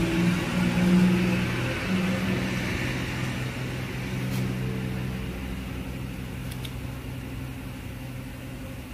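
A steady low mechanical hum with a few held tones, slowly fading, with a couple of faint light clicks about halfway through.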